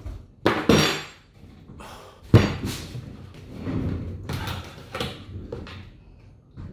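Handling noise as a milk carton and an ice cream tub are picked up off an office chair and set on a desk: rustles and bumps, with one sharp knock about two seconds in. After that come the scrape of the carton's cap being twisted open and a few hard breaths.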